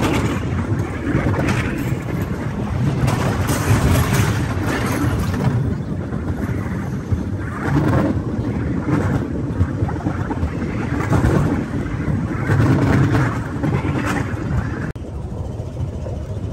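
Norry (Cambodian bamboo train) running along the rails: a steady, loud rumble of the wheels and platform on the track, with wind buffeting the microphone. The sound drops for an instant about fifteen seconds in.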